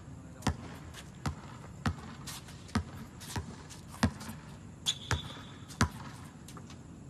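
A basketball bouncing on a hard outdoor court as a player dribbles, about nine separate bounces spaced well under a second apart. About five seconds in, a high steady squeal runs for about a second.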